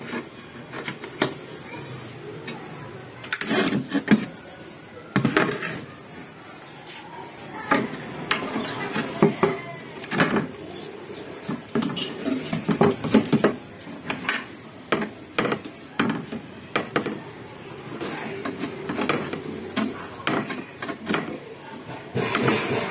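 Spanner clinking and rattling on a car radiator's mounting bolts and metal bracket as they are undone, with the radiator knocking against the cabinet top. The clinks and knocks come irregularly, in clusters.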